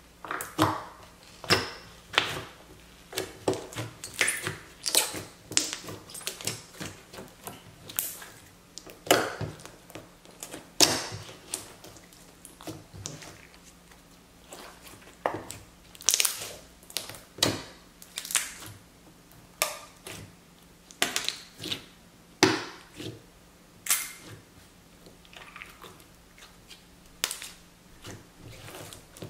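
Clear glue slime with cut melamine-sponge cubes ("jelly cubes") mixed in, squeezed and kneaded by hand. It gives irregular sharp crackles, clicks and pops, several a second, that come from the sponge cubes working in the slime, with a couple of quieter pauses.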